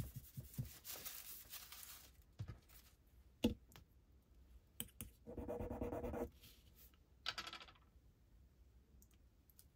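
Faint handling noise and a couple of light taps as a black touchstone is set down, then a metal ring rubbed across the stone for about a second, a gritty scratching, with a shorter rub near the end. This leaves a streak of the metal for an acid test of whether it is gold or silver.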